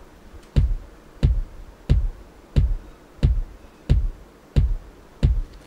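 Four layered electronic kick drum samples, programmed in FL Studio's step sequencer and played back alone on every beat at 90 BPM: eight even, bass-heavy hits with a short click on top, about two-thirds of a second apart.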